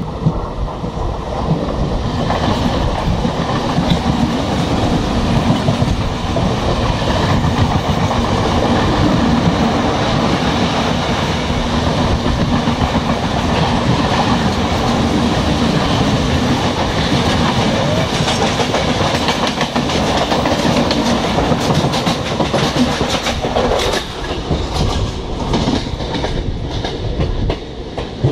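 Suburban electric multiple-unit local train running close alongside on the next track, heard from an open door of a moving passenger coach: steady loud rumble of wheels on rail with clickety-clack. Sharp clicks over rail joints come through in the last few seconds.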